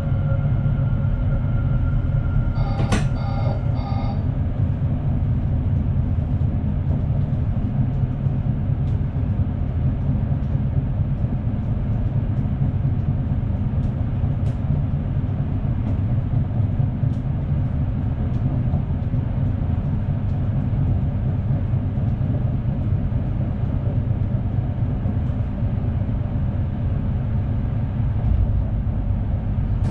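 NS SNG electric multiple unit running along the line, a steady low rumble of wheels and drive. A brief high-pitched tone with a click sounds about three seconds in.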